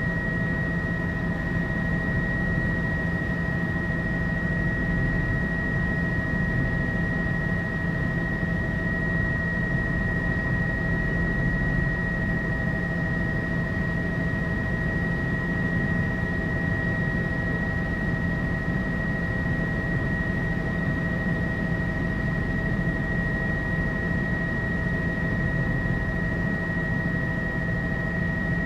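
Helicopter cabin noise in steady cruise flight, heard inside the cabin: a constant engine and rotor drone with a steady high whine over it.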